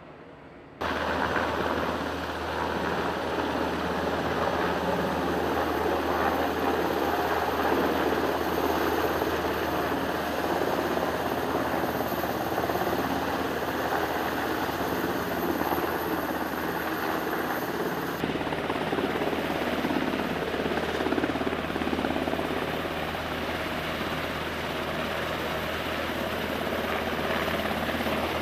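Rotorcraft running steadily close by over a carrier flight deck: a loud, even rush of turbine engines and rotors with a low steady hum underneath, starting abruptly about a second in.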